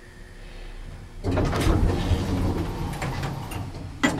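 Elevator car's automatic sliding door opening on arrival: a rumbling slide starting about a second in and running a few seconds, ending with a knock near the end.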